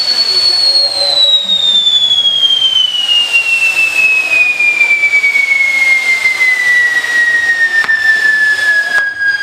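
A whistling firework burning: one long, loud whistle sliding steadily down in pitch over a hissing crackle, with two sharp pops near the end.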